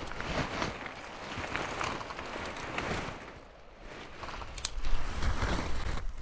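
Dry pine needles and brush crackling and rustling as a player in a ghillie suit shifts in his hide, with a sharp click about four and a half seconds in.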